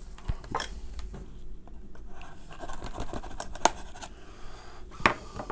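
Small cardboard product box being handled and opened: scratching and rubbing of cardboard, with a few sharp clicks, the loudest about three and a half and five seconds in.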